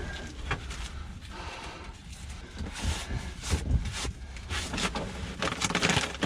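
Handling noise from someone searching for gloves: scattered knocks, clicks and scrapes over rustling.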